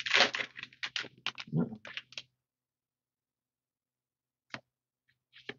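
A foil Magic: The Gathering booster pack wrapper crinkling and crackling as it is torn and pulled open, a dense run of crackles for about two seconds. After a pause, two light clicks near the end as the cards are handled.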